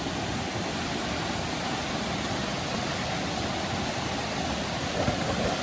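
Steady rushing of river water over cascades, an even hiss and rumble.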